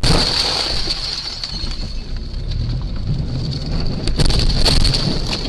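A car collision heard through a dashcam's microphone: a sharp bang right at the start, then loud, continuous rumbling noise with a steady high whine over it.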